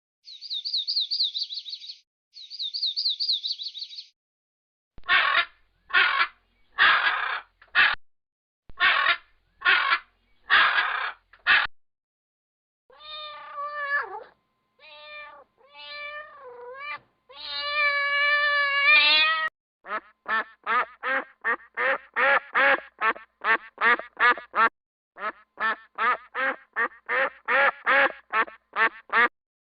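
A string of separate animal calls: ducks quacking in runs of short quacks, and a cat meowing in several drawn-out calls that bend in pitch. It opens with two short bursts of high chirping trills.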